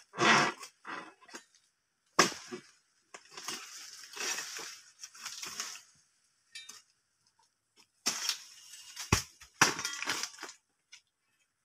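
Long-pole harvesting sickle (egrek) cutting into an oil palm crown: irregular cracking and tearing cuts, with fronds rustling and crashing down, and a sharp thump about nine seconds in.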